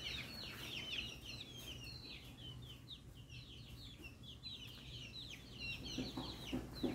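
A group of baby chicks peeping continuously, many short, high, falling cheeps overlapping one another. A few soft bumps come near the end.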